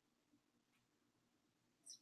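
Near silence: quiet room tone with a faint tick or two.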